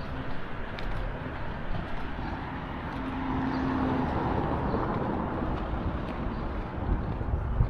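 Town street sounds with a motor vehicle going by, its noise swelling and fading in the middle, and a few sharp clicks near the end.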